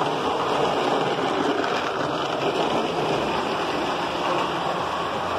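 Steady rolling rumble of a model streetcar and trains running on the tubular metal rails of a toy train layout.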